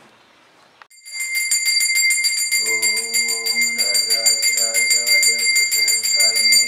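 A bell starts ringing about a second in, struck rapidly many times a second with a steady high ring. A melody in steady held notes joins a little later.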